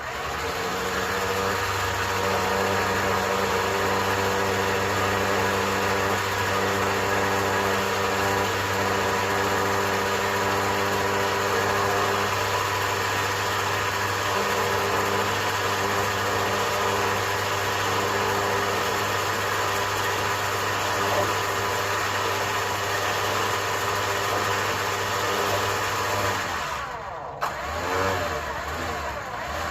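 Harbor Freight 9000 lb electric winch running steadily under power, its motor and gear train winding a new cable onto the drum. It stops about 26 seconds in, followed by a short click.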